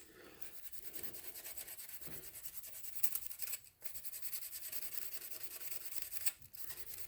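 Copper tubing being rubbed clean by hand with an abrasive before brazing: quick back-and-forth scraping strokes, about five a second, pausing briefly twice.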